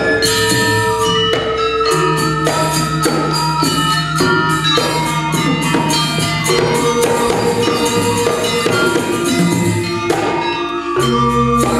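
Balinese gamelan playing: bronze metallophones ringing in fast interlocking strokes over held low tones, with two-headed kendang drums and a dense metallic clatter of percussion. The low sustained notes shift several times, with a brief lull about ten and a half seconds in before the ensemble comes back in full.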